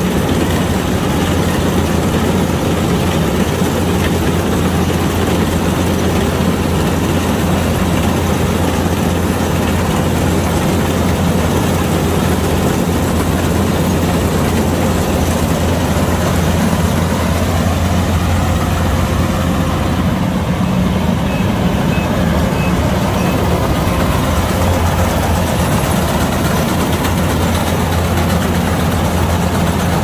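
Kubota combine harvester's diesel engine running steadily with a deep hum. Four faint short high beeps sound about two-thirds through.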